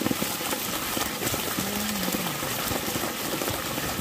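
Water gushing and splashing steadily from the open end of a PVC irrigation sub line and from many open drip lateral tubes onto sandy ground. The line is being flushed to clear out sand and bits of cut pipe.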